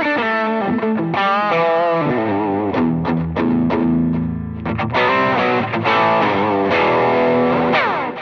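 Overdriven electric guitar played direct through an AMT Pangaea CP100 impulse-response cabinet simulator loaded with a Celestion speaker IR, on a semi-hollow Alvarez guitar. It plays sustained notes and chords with string bends and vibrato, then stops near the end and the last note rings down.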